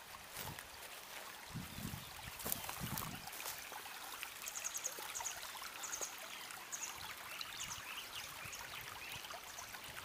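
Shallow water trickling along a concrete irrigation channel, with a few soft low thumps in the first three seconds and short high chirps in the middle.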